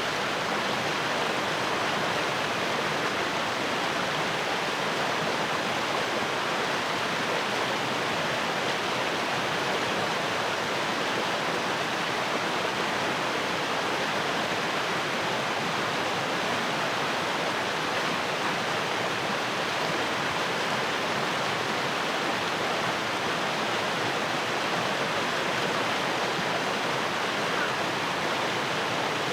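Fast-flowing stream rushing steadily over rocks, a constant even rush of water.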